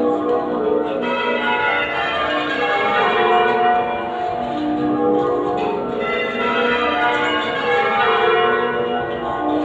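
Change ringing on a ring of eight 1952 Mears & Stainbank church bells tuned in F#, the bells struck one after another in a steady continuous stream of overlapping tones. The bells are half-muffled for mourning, so each bell sounds open at one stroke and damped at the other.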